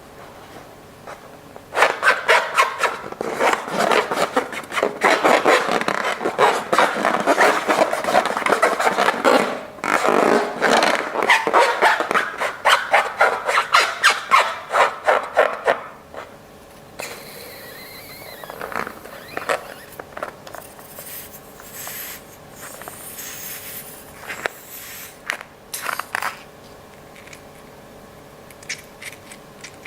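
Slime squished and worked by hand: a long run of rapid wet crackling and squishing strokes, stopping about halfway through, then quieter scattered handling and rustling.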